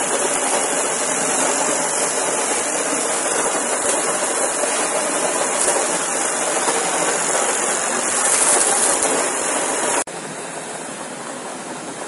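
Gunite spraying: compressed air blasts the dry concrete-and-sand mix through the hose, and it is wetted at the nozzle and shot against the pool wall with a loud, steady rushing hiss. About ten seconds in the rush drops abruptly to a quieter level.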